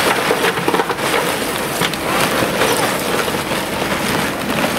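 Wood charcoal poured from a paper sack into a metal grill firebox, the lumps clattering and rattling in a dense stream of small knocks, over the sizzle of meat on the grill.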